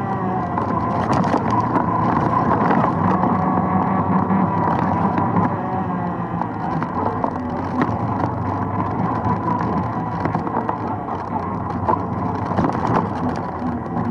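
ATV engine running steadily as the machine rides along a bumpy, leaf-covered dirt trail, with scattered clicks and knocks throughout.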